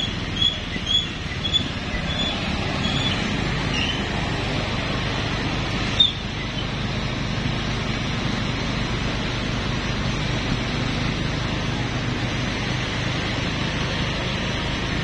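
Motorcycle engine running steadily with rushing wind noise while riding at low speed. A run of short high chirps sounds in the first few seconds, and there is a single sharp click about six seconds in.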